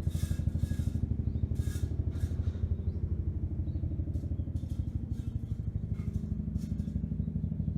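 Background music with a fast, even pulse over steady low tones.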